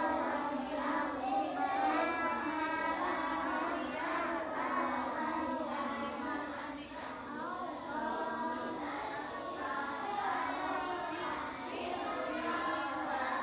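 A group of young children reciting Arabic prayer recitations aloud together in a sing-song chant, with no break.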